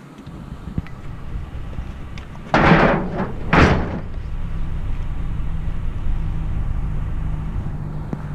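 Two loud crashes about a second apart as sheet-metal scrap is thrown into the back of a vehicle, followed by a vehicle engine running steadily.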